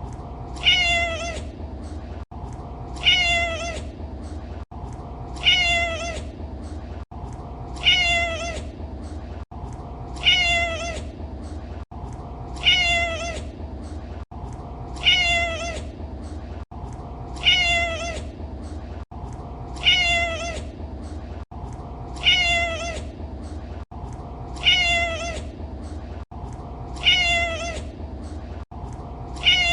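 A cat meowing: the same short, falling meow repeats about every two and a half seconds, a looped recording with a brief dropout at each repeat. A steady low hum runs underneath.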